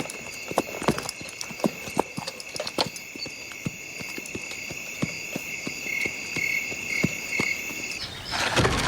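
Hooves clopping at an uneven walk over a steady chirring of insects; the insect sound cuts off about eight seconds in and a loud rushing noise starts near the end.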